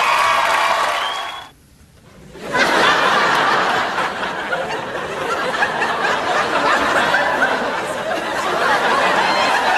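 A man laughing over studio audience laughter, broken off by a brief near-silent gap about a second and a half in. Then a studio audience laughs continuously.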